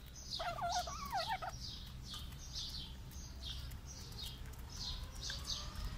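Desi chickens calling: a wavering, pitched hen call about a second long near the start, over a run of short high chirps repeating two or three times a second.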